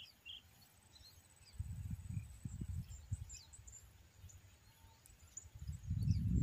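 Low, irregular rumbling buffeting on the microphone, starting about a second and a half in, easing off, then returning louder near the end, over faint short bird chirps.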